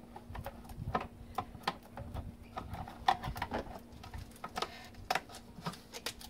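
Irregular small clicks and taps of a screwdriver working a hose clamp on an engine's air intake duct as the duct is handled and worked loose.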